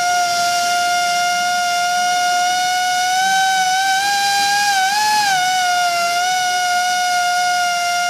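Pneumatic hand-held glass edge grinder running at speed with its wheel on the wet edge of a glass sheet, giving a loud steady high whine. The pitch rises a little about four to five seconds in, then settles back.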